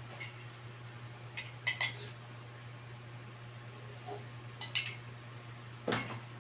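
Several sharp metallic clinks in small groups, like small metal objects being handled or set down, over a steady low hum.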